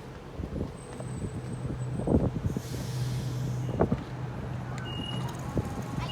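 Electric suburban train at the platform, a steady low hum throughout, with a short hiss of air about two and a half seconds in and a couple of light knocks.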